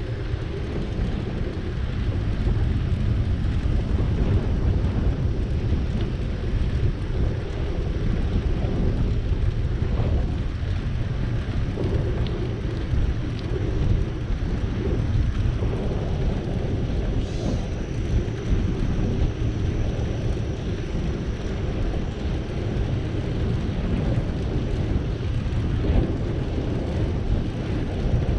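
Wind rumbling on the microphone of a camera on a moving bicycle, mixed with the rolling noise of the ride: a steady, dense low rumble. A faint high tone comes in a little past the middle and fades a few seconds later.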